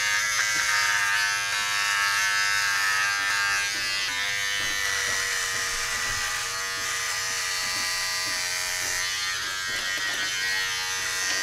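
Braun MGK3220 cordless hair trimmer, fitted with a number 1 guard, buzzing steadily as it is run through short hair on a man's head. Its pitch dips slightly in the middle of the pass.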